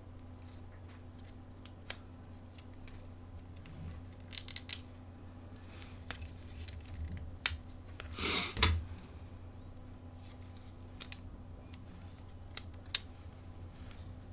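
Small clicks and taps of tools working on a mobile phone's plastic housing as it is taken apart, with a short scraping rustle about eight seconds in, over a steady low hum.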